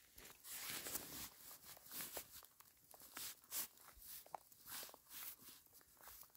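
Faint footsteps walking at an even pace over the forest floor, about two soft crunching steps a second.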